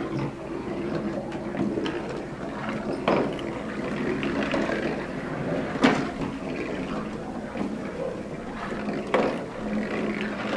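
Marbles rolling along the poster-board track of a balsa-wood model roller coaster: a steady rolling rumble broken by a few sharp clicks, the loudest about halfway through.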